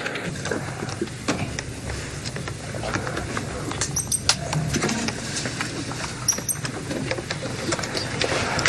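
A white mouse squeaking briefly, twice, high and short, among light clicks and taps as it is handled and set into a dollhouse.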